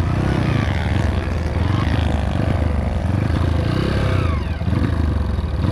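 Honda CRF230 dirt bike's single-cylinder four-stroke engine running under way, its revs rising and falling as the throttle is worked, with a brief dip a little before the end.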